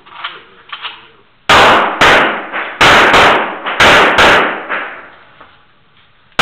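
Pistol shots during an IPSC stage: six shots fired as three quick pairs, each pair about half a second apart, with a loud echo after each shot in the indoor range.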